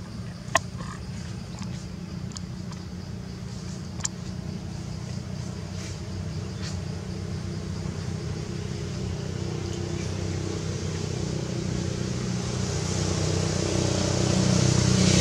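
A motor vehicle's engine running, with a low hum that grows steadily louder as it draws near. A sharp click sounds about half a second in and another about four seconds in.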